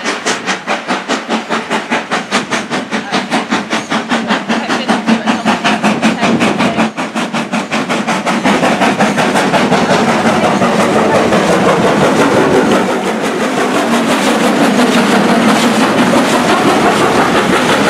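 BR Ivatt Class 2MT 2-6-0 steam locomotive working a train past at close range: rapid, even exhaust chuffs at first, giving way about halfway through to a louder, steady rush of steam and running noise as it draws level.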